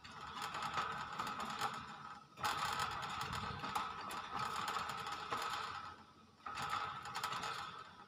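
Hill myna giving harsh, rasping calls in three bursts, the middle one the longest, with short breaks a little after two seconds in and about six seconds in.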